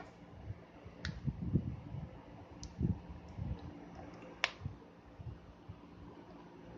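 Soft thumps and a few sharp clicks as a small bowl of whipped butter-and-sugar mixture is tipped and knocked against the rim of a large mixing bowl to empty it. The loudest click comes about four and a half seconds in.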